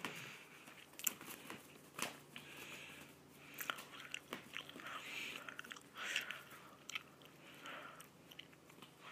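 Manx cat biting and licking at its paw up close: irregular wet mouth clicks and short chewing and rasping sounds, with sharper clicks about one and two seconds in.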